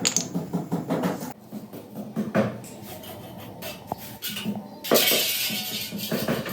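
Metal tools clinking and knocking in quick, uneven strikes, with a loud burst of hiss about five seconds in.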